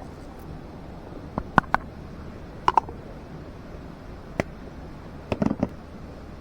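A few light clicks and knocks at uneven intervals, some in quick pairs or small clusters, over a steady low background.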